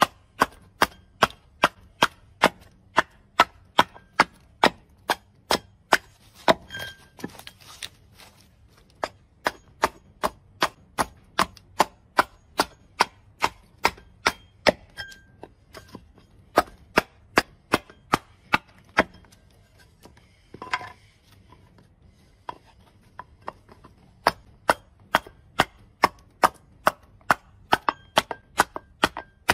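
Hand axe chopping into a wooden board braced on a stump chopping block: quick light chops, about two a second, with two short pauses along the way.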